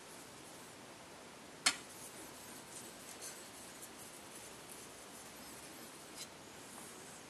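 Knife blade stroked back and forth on a Yaginoshima suita Japanese natural sharpening stone, a faint steady scraping. A sharp click stands out about a second and a half in, and a smaller one near the end.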